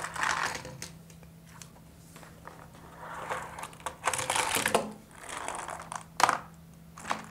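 Plastic parts of a Matchbox toy car wash playset being handled, with small die-cast cars rolled and scraped along the plastic track in rattling bursts. One sharp plastic click a little after six seconds.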